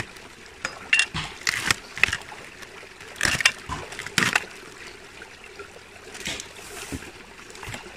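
A small stream trickling, with an uneven run of short sharp clicks and splashes over it.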